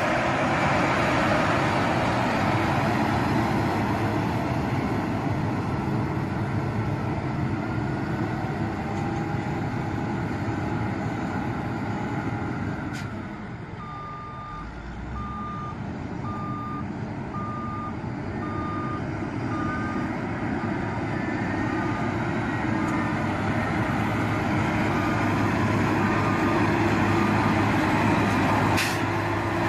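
Heavy road-construction machinery running steadily, with a reversing alarm beeping about once a second from about halfway through.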